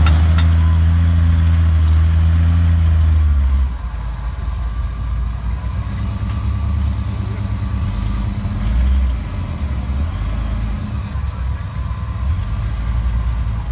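Swamp buggy's big engine running hard at a steady pitch for about three and a half seconds, then easing off to a lower, uneven rumble.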